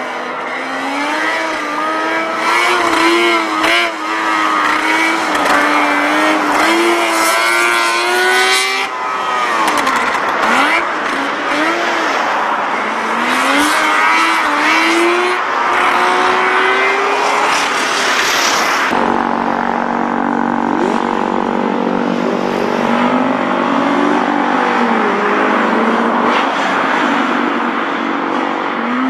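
Small classic cars' engines revving hard through a tight cone course, the pitch rising and falling with each burst of throttle and lift. The sound changes abruptly about two-thirds of the way through as another car's engine takes over.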